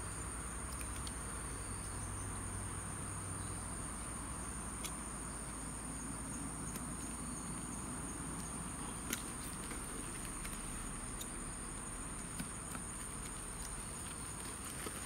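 A constant high-pitched drone of insects, with a few light clicks now and then.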